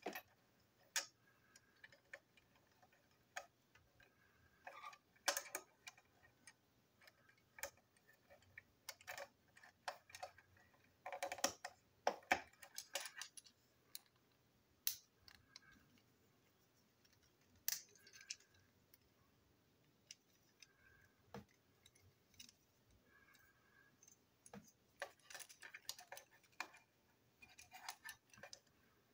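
Faint, irregular clicks and taps of small plastic toy-train wagon parts handled by hand while a wheel chassis and couplers are taken apart, a few clustered together.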